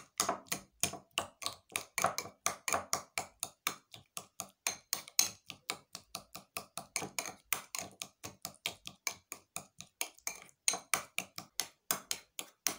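Metal spoon clinking and tapping against a small glass bowl while mashing avocado: a quick, even run of taps, about five or six a second.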